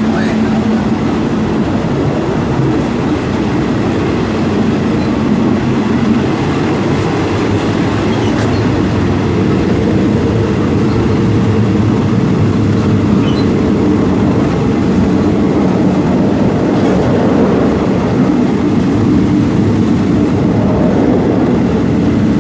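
Moving passenger train heard from on board: the steady, loud rumble of the carriage running on the rails, with no clear change in speed.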